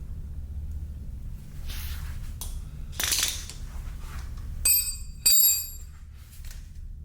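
Metal tools and parts clinking and scraping during hand work on a dirt bike. About two thirds of the way in come two short, bright ringing clinks of metal on metal, the loudest sounds. A steady low hum runs underneath.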